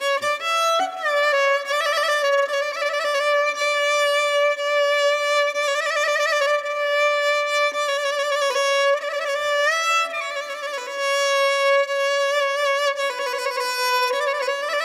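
Background music: a violin playing a slow, lyrical melody with vibrato and sliding between notes.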